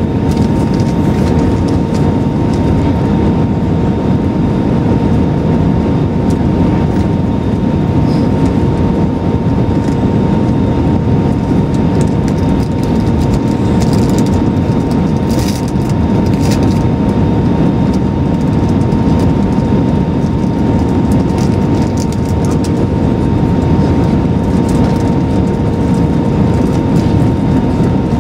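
Airbus A320-200 cabin noise in flight: a loud, steady drone of jet engines and rushing air, with a steady whine and a lower hum held through it.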